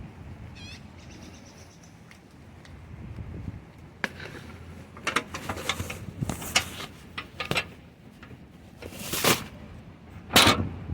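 A short bird chirp near the start, then a run of scuffs, knocks and rustling noises, loudest in the last two seconds.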